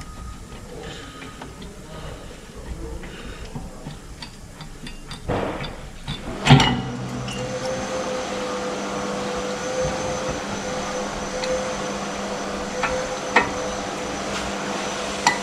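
Brake pads and caliper of a car's rear disc brake being handled by hand: light metal clicks and taps, then a sharp metal knock about six seconds in. Right after it a steady machine hum starts and runs on, with a few more clicks near the end.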